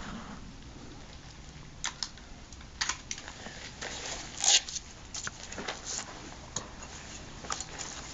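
A scattered series of light, irregular clicks and knocks over a low background, the sharpest about four and a half seconds in.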